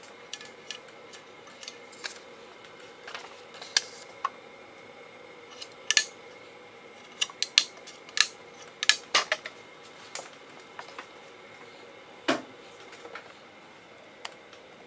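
Scattered sharp clicks and taps, thickest in the middle, as paper and parts are handled at the paper chuck of an MDF rose engine lathe. Underneath runs a faint, steady whine from the lathe's stepper-motor drive.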